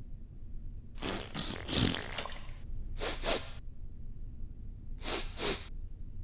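Loud sniffing through the nose, three times about two seconds apart, the first sniff the longest.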